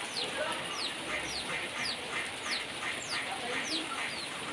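Small birds chirping: a steady string of short, high chirps, each sliding downward in pitch, two or three a second.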